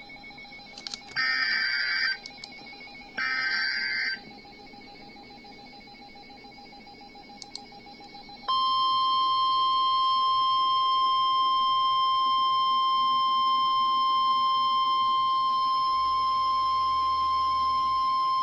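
NOAA Weather Radio Emergency Alert System signal: the last two of the screeching SAME digital header bursts, each about a second long, then a few seconds of faint hum. About eight and a half seconds in comes the steady single-pitch Warning Alarm Tone, which holds for about ten seconds and signals that a severe thunderstorm warning follows.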